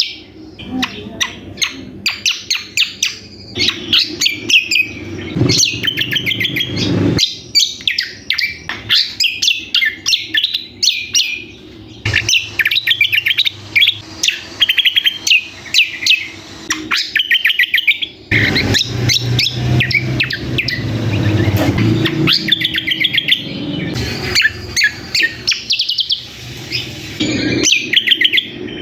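A cucak kombo (kecial kombok) calling busily in rapid, rattling runs of high chirps with only brief pauses: an agitated, noisy lure call used to draw in males. A low background hum comes and goes under it.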